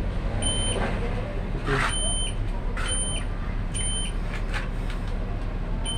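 Electronic warning beeper, most likely the newly installed solar hybrid inverter's, sounding short high beeps about once a second over a steady low electrical hum.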